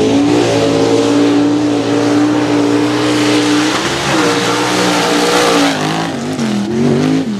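Square-body Chevy mud truck's engine held at high revs under full throttle as it pulls through the mud, over the noise of the tyres throwing mud and dirt. The revs dip about four seconds in, then drop and waver near the end before climbing again.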